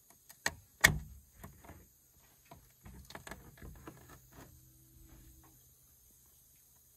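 Scattered clicks and knocks of hand tools worked at a punctured 4WD tyre's tread, where a rock is lodged. The loudest knock comes about a second in, and a quick run of clicks follows about three seconds in.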